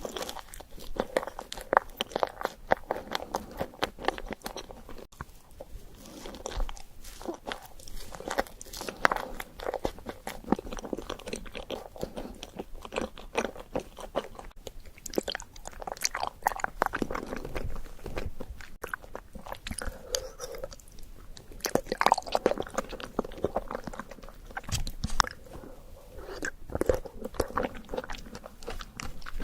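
Person eating: repeated bites and chewing, with many short, irregular crunches and crackles.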